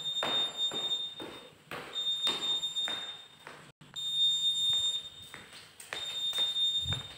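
Footsteps on a hard concrete floor, about two a second, under an electronic alarm buzzer. The buzzer sounds a high, steady beep in long pulses of about one and a half seconds with short gaps. There is a low thump near the end.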